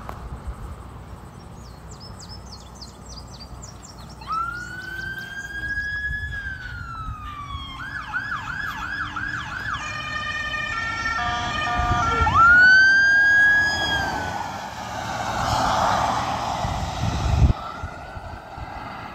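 Police car electronic siren cycling through its tones: a slow rising and falling wail, then a fast yelp, then quick alternating two-tone steps, then the wail again. A loud rushing noise follows near the end and cuts off suddenly.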